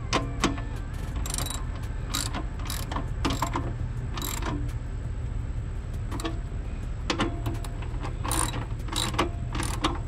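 Hand ratchet with a 10 mm socket clicking in short bursts as M6 bolts are run into a bracket, over a steady low hum.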